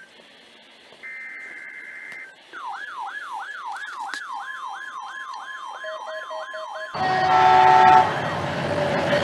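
Emergency Alert System test: the last burst of the digital SAME header, a buzzy two-tone data burst, followed by an electronic siren yelping up and down about three times a second. About seven seconds in, it cuts to a louder mix of steady tones and noise.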